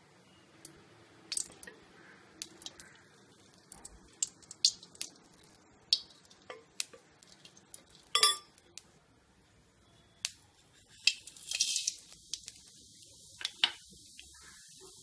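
Scattered clinks and taps of kitchen utensils and cookware. About eleven seconds in comes a short rush as cumin seeds and dal are tipped into hot oil in a pan, then a faint steady sizzle of the tempering seeds.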